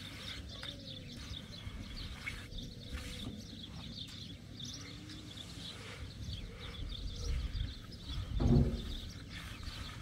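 Small birds chirping throughout, over a low rumble of wind on the microphone. About eight and a half seconds in, a short, louder pitched call stands out.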